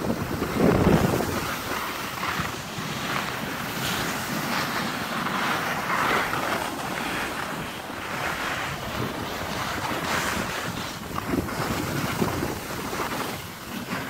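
Wind buffeting the microphone of a camera moving downhill, mixed with the hiss and scrape of snowboard edges sliding over packed snow. The noise rises and falls unevenly and is loudest about a second in.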